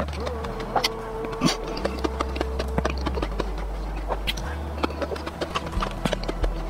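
Close-miked mukbang eating sounds: wet chewing and rapid clicking mouth noises from eating a soft cake. A held humming tone sounds through the first few seconds.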